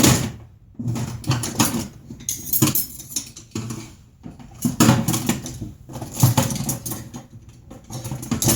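Screws being backed out of a car amplifier's metal casing with a screwdriver: irregular scratchy scraping and clicking in short bursts with pauses between.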